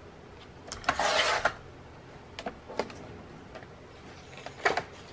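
Sliding paper trimmer's blade run along its rail, slicing through 80 lb cardstock in a short rasp about a second in, followed by a few light clicks and quick paper rustles as the cut pieces are handled.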